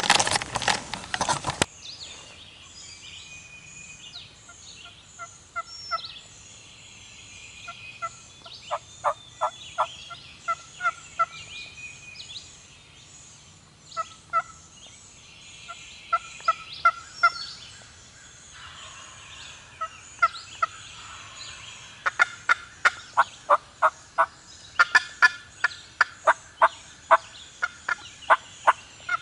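Turkey yelps in repeated series of short, sharp notes, a few at a time at first, then a long, fast run near the end, with songbirds chirping in the background. At the very start there is a loud rustling burst from the camera being handled.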